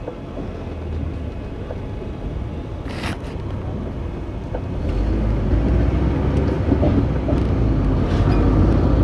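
Car engine and road noise heard from inside the cabin while driving slowly; it grows louder about five seconds in, with a brief hiss about three seconds in.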